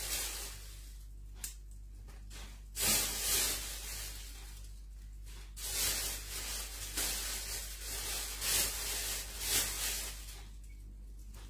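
Thin plastic bag rustling and crinkling in irregular bursts as hands work through chili leaves and stems inside it, quieter near the end.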